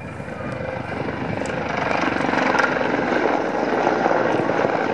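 Mil Mi-24 Hind attack helicopter flying past, its five-bladed main rotor and two turboshaft engines growing louder over the first two seconds, then holding steady, with a fast even beat from the rotor.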